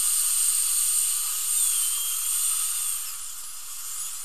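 High-speed dental handpiece cutting into the stripped head of an implant occlusal screw: a steady high hiss with a thin whine whose pitch dips and rises as the bur bites. It eases off a little in the last second or so.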